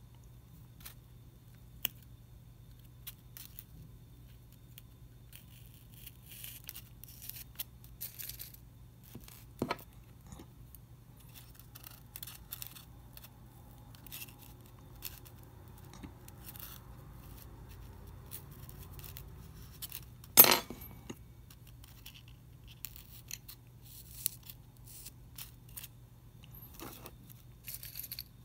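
Small clicks and scrapes of hands working pins, tweezers and paper strips into a styrofoam block, scattered through, with one loud sharp click about twenty seconds in. A faint steady low hum runs under it.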